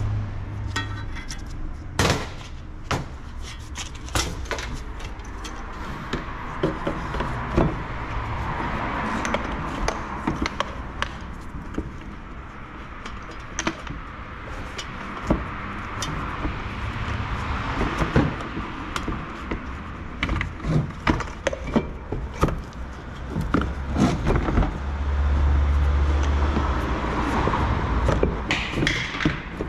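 Scattered clicks, knocks and light rattles of plastic parts being handled and fitted, as an evaporator is set into a car's heater and air-conditioning housing, over a steady hiss. A low hum rises for a couple of seconds near the end.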